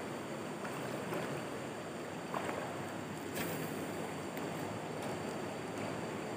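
Steady rushing of a shallow river flowing over stones, with a couple of faint brief clicks near the middle.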